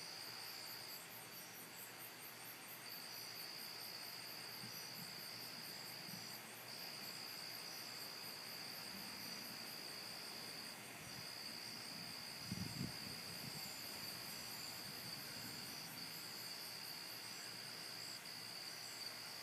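Night insects, crickets: a steady high trill broken by short gaps, with a faster pulsing chirp higher up. A brief low rumble comes about two-thirds of the way through.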